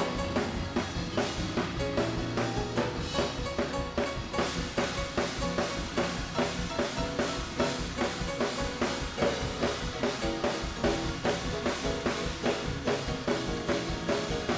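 Live church band playing an up-tempo gospel praise break, with the drum kit driving a fast, even beat of about four hits a second under steady chords.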